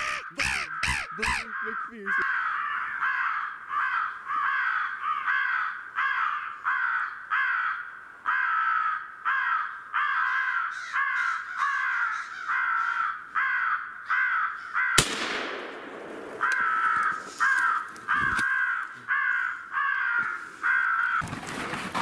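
Crows cawing over and over in an even, fast series of harsh calls, about one and a half a second, with a single sharp crack about fifteen seconds in.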